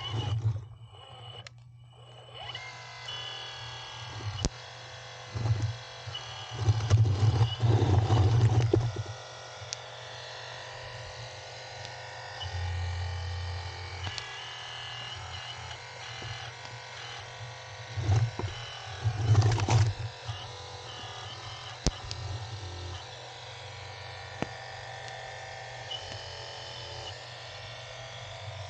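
Radio-controlled hydraulic excavator's small electric hydraulic pump whirring steadily. It surges louder twice as the pump comes under load, with a few sharp clicks.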